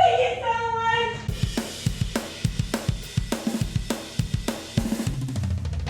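Music: a short held melodic phrase, then a drum kit beat with kick, snare and cymbal hits that comes in about a second in.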